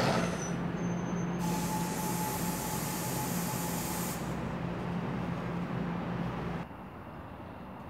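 NJ Transit bi-level train standing at the platform with a steady electric hum. About a second and a half in, a loud hiss of compressed air from the train's air brakes runs for about three seconds and stops suddenly. The hum cuts out abruptly near the end, leaving a quieter background.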